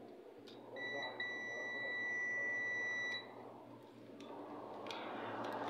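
Digital multimeter's continuity beeper giving one steady high beep of about two and a half seconds, starting about a second in, with a tiny break just after it starts. The beep means the probe tips are across a connected, low-resistance path on the repeater's circuit board. A few faint clicks are also heard.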